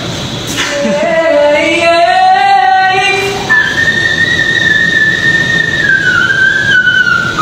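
A man's singing voice: a full sung note that climbs from about a second in, then, from about halfway, a thin, very high whistle-register note held steadily and sliding down a little near the end.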